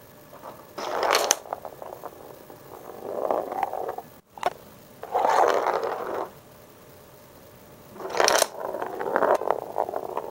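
Small wooden figures being knocked about by a cat, clattering and scraping on a wooden floor in several separate bursts. The sharpest knocks come about eight seconds in, followed by a run of sliding and rattling.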